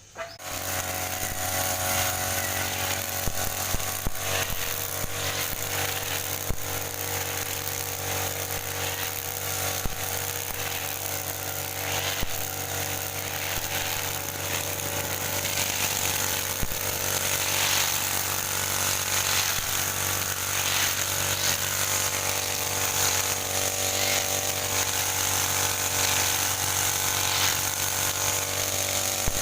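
Handheld grass cutter (brush cutter / line trimmer) switched on and running steadily at a constant speed, with a steady motor hum and a hiss of cutting over it.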